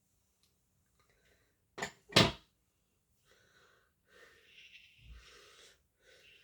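Two sharp knocks or bumps close together about two seconds in, the second louder, followed by faint soft rustling sounds.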